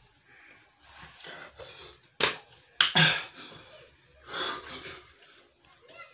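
A person gasping and breathing hard in short, noisy bursts from the burn of hot chillies, the sharpest two about two and three seconds in.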